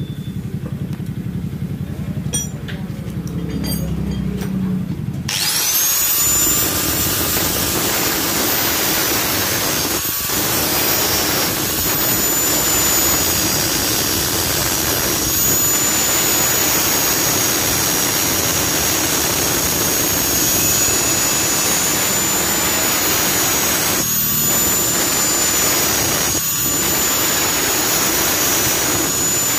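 After about five seconds of low hum, an electric angle grinder starts up to a high whine. It grinds steadily through a steel bolt end, with sparks flying, and the pitch dips under load. The noise eases briefly three times as the disc comes off the metal.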